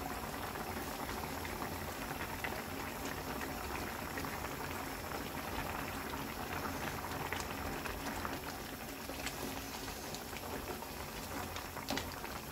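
Pork kimchi stew boiling in a wide frying pan: a steady bubbling with many small pops.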